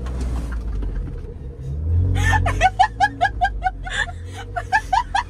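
A 4x4's engine running low and steady, swelling briefly about two seconds in, while from about two seconds in someone laughs in a run of short, high-pitched bursts.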